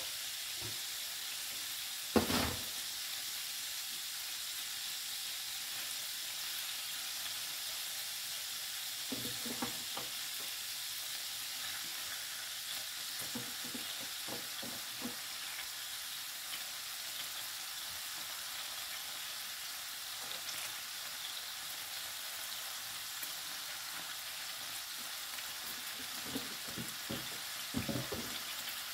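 Hot oil sizzling steadily on an electric grill tray as raw beyti kebab meat is laid onto it. There is a sharp knock about two seconds in, and a few soft knocks later as more kebabs go down.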